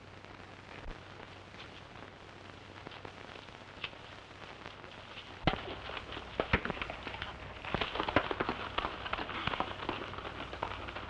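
Old film soundtrack hiss. From about five seconds in come sharp knocks, then a busy, irregular clatter of horses' hooves on a dirt street as riders mount and move off.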